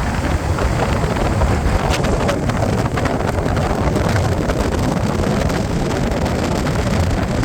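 Strong wind blowing across the microphone: a steady low rumble with crackling gusts of buffeting.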